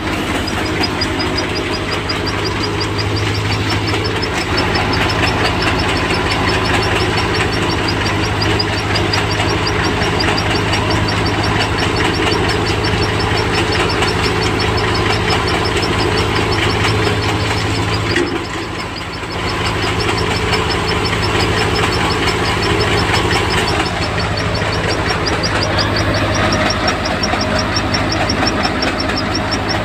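Soybean harvesting machine running steadily, an engine drone with a fast, even rattle from its moving parts. The sound dips briefly a little past halfway, then picks up again.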